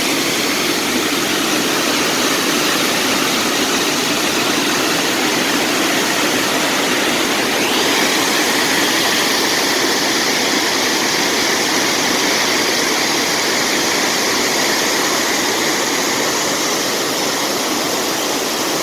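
Waterfall: a loud, steady rush of falling water, its hiss turning brighter about halfway through.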